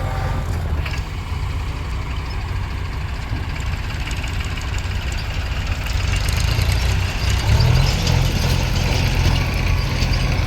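Heavy diesel machinery engine running steadily, growing louder and busier about seven or eight seconds in.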